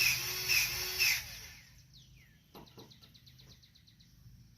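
Powered grease gun running and pumping grease into a front-wheel grease fitting, with even strokes about two a second, stopping about a second in. Faint quick clicking and a few light knocks follow.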